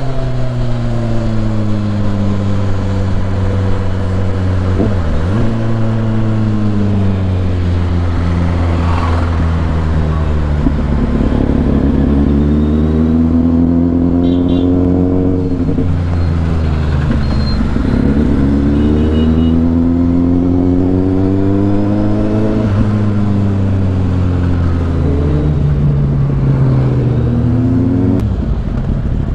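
Sport motorcycle engine heard from the bike while riding, its note rising and falling several times as the rider opens and closes the throttle through traffic, over steady wind and wet-road noise. Near the end the engine drops to a lower, quieter note as the bike slows.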